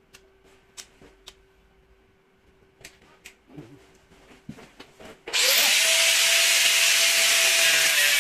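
A few light clicks and knocks, then about five seconds in an electric angle grinder spins up with a rising whine and grinds steadily and loudly against the damaged steel quarter panel of the car.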